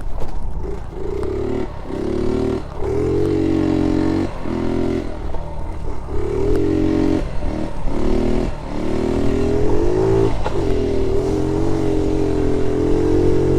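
Honda Z50 J1 monkey bike's small single-cylinder four-stroke engine under way, revving up and dropping back again and again as the throttle is opened and shut, then holding steady revs for the last few seconds.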